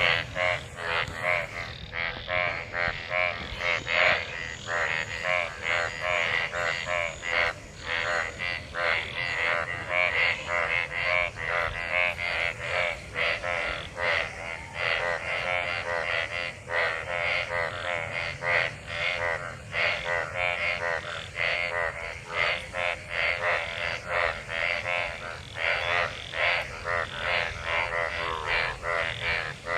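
Chorus of many frogs calling together in rain-filled water after monsoon rain: rapid, overlapping croaks with no break, a mating chorus.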